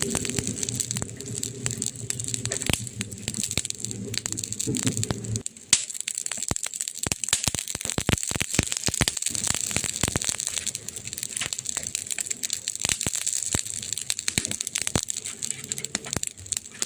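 Wood fire crackling: many sharp pops and snaps of burning wood over a steady hiss. A low hum runs under it for the first five seconds or so, then stops suddenly.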